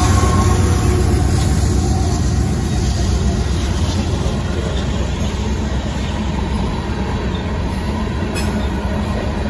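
Freight train of loaded tank cars rolling past, a steady rumble of wheels on rail that slowly gets quieter.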